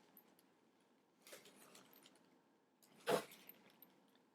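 Faint rustling of packaging being handled, with one short, sharper rustle about three seconds in.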